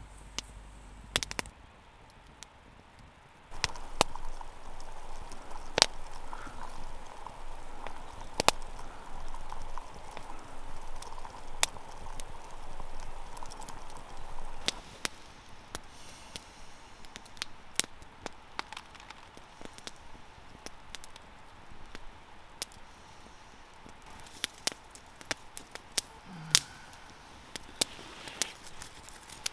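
Wood campfire crackling, with sharp pops at irregular intervals. A soft steady hiss runs along with it for about ten seconds in the first half.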